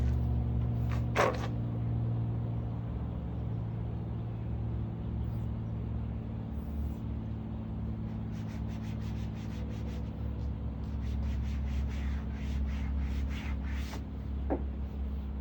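A steady low mechanical hum, with a run of quick light knocks in the second half.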